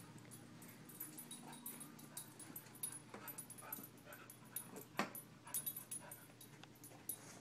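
A beagle making small whimpering sounds while moving about, with irregular light clicks and taps and one sharper click about five seconds in.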